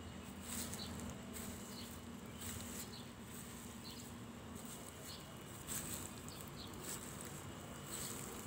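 Faint garden ambience: short high chirps about once a second over a low steady hum, with a few soft clicks.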